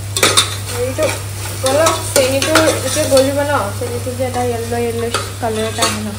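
A metal spoon stirring and scraping inside an aluminium pressure cooker on a gas stove, with food sizzling as it fries in the pot.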